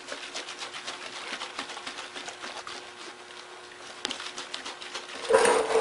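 Gasoline sloshing inside a plastic lawnmower fuel tank as it is shaken hard and fast to loosen grass and debris, in rapid rhythmic strokes that die away about three and a half seconds in. A single sharp click follows about four seconds in.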